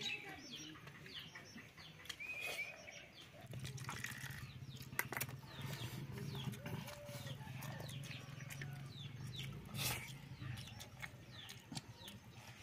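Village yard ambience: small birds chirp over and over in short falling notes, and a hen clucks now and then. A low steady hum runs through the middle, and there are a couple of sharp clicks, about five seconds in and near the end.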